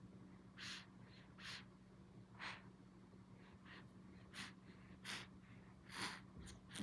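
A 45-day-old baby snoring in sleep: faint, short, noisy breaths about once a second, at an uneven pace, over a steady low hum.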